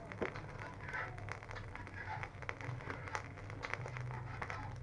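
Charcoal fire crackling and popping in a clay stove as green rattan stalks are laid on the coals, with irregular sharp snaps and a light rustle of the stalks.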